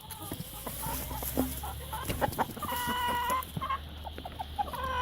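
Chickens clucking, with a longer drawn-out call about two and a half seconds in and another near the end.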